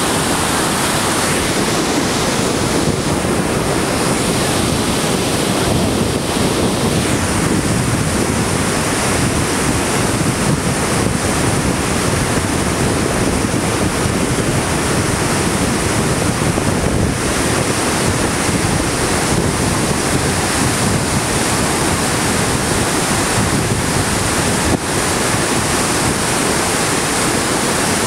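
Steady rushing of whitewater: the Rideau River in heavy flow pouring over the rocks of Hog's Back Falls below the dam.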